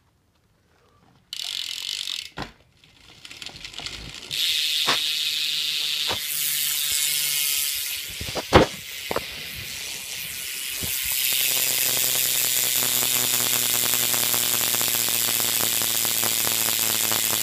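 BMX rear hub freewheeling: the pawls click so fast that they make a buzzing ratchet as the wheel is spun by hand. There are a few knocks as the wheel is pushed, and from about two-thirds of the way in the buzz holds steady as the wheel coasts.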